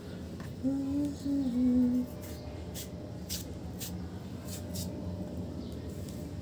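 A woman humming a few held notes. After that come several short, sharp clicks and taps of a kitchen knife on a wooden cutting board as a cucumber is cut, over a steady low background hum.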